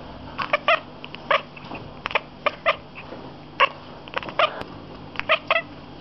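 Domestic cat chattering at seagulls through a window: about a dozen short, clipped chirps in quick irregular clusters. This is the excited chatter a cat makes at birds it sees but cannot reach.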